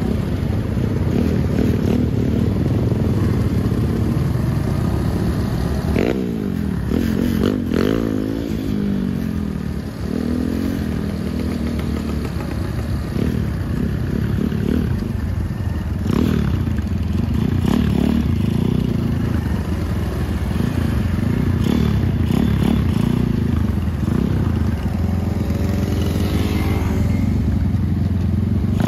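Small motorcycle engines running at low speed, their pitch rising and falling with the throttle several times.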